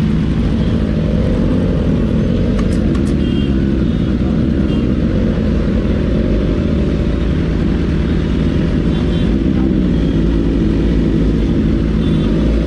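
Superbike engine running steadily while being ridden, a loud, even low rumble with no change in pace.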